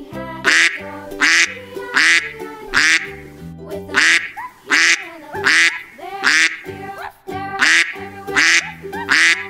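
Ducks quacking in a steady series, about one quack every three-quarters of a second, over background music.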